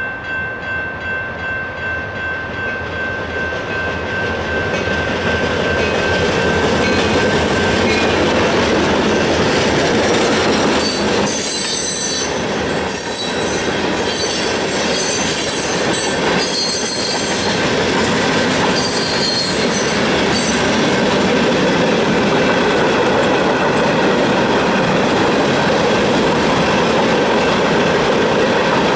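Freight train passing over a grade crossing. The crossing bell rings at first, then the noise swells as the train arrives, and the cars roll by with steady wheel clatter and patches of high-pitched wheel squeal in the middle.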